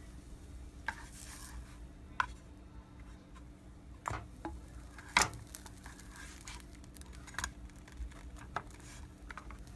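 Spatula knocking and scraping against a small frying pan while a pancake cooks: a handful of separate light clicks and taps, the loudest about five seconds in, over a faint steady hum.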